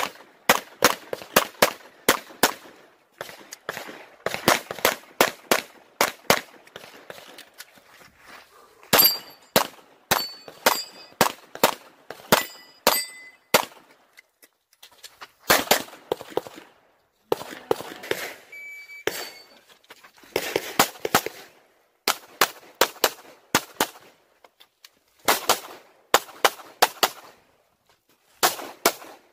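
Glock 34 9 mm pistol fired rapidly in quick strings of shots, with short gaps as the shooter moves between positions. Several shots near the middle are followed by a brief metallic ring from steel targets being hit.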